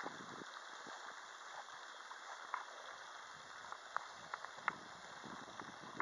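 Quiet outdoor background: a steady faint hiss with a few light ticks, the loudest a little after the middle.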